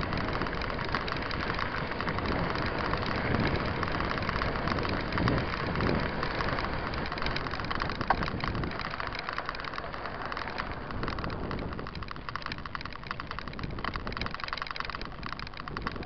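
Mountain bike riding over a dirt and gravel road: steady rolling noise and rattling. It gets a little quieter after about nine seconds.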